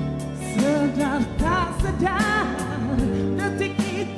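A sung duet with a rock band backing: a voice holding notes with wide vibrato over sustained keyboard or guitar chords, bass and drums.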